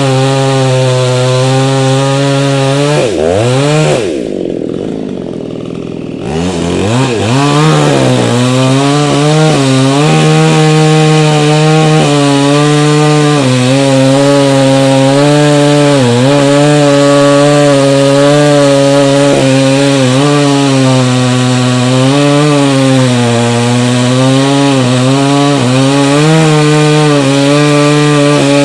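Two-stroke chainsaw running at high revs while cutting into a tree trunk. About three seconds in the throttle is let off to idle. A few seconds later it revs back up and keeps cutting, its pitch dipping and recovering as the chain bogs in the wood.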